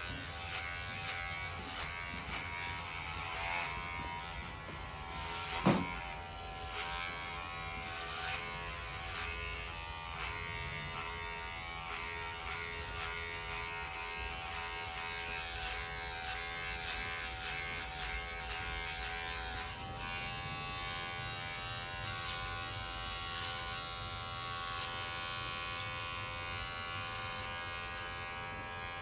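Cordless electric hair clipper running with a steady buzz as it cuts short hair on the back and sides of the head, with scattered short ticks. A single sharp knock comes about six seconds in.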